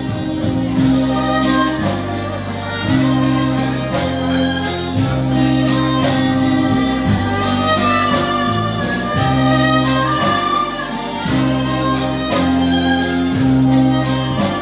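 Instrumental break of a folk ballad played live: an electric violin bowing the melody over strummed acoustic guitar, with steady low notes changing every second or two underneath.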